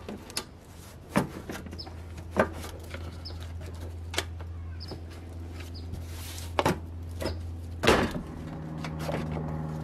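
Plastic clips and trim on a Toyota Tundra's front bumper side piece being pried loose with a plastic trim tool: scattered clicks and creaks, with a louder crack about eight seconds in as the piece comes free and its clip bracket breaks.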